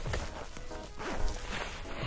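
Background music, with the rustle of clothing as motorcycle riding pants are being worked off.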